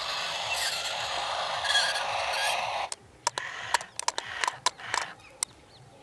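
Remote-control toy excavator digging: a steady scraping hiss for about three seconds that cuts off suddenly, then scattered sharp clicks of gravel and small stones.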